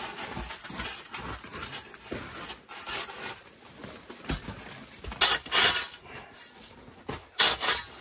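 Long-handled metal ice chipper scraping and chopping at packed snow and ice, with loud rasping strokes about five seconds in and again near the end, between lighter crunches and knocks.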